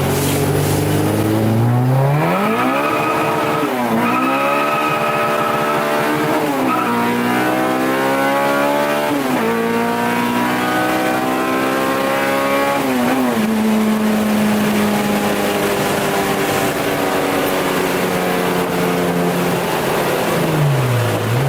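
A car engine accelerating hard through the gears: the revs climb, drop sharply at each upshift (about four seconds in, again at six and a half, at nine and at thirteen), then settle and slowly fall while cruising. A steady high whine sits over the first few seconds. Near the end the revs dip and come back up.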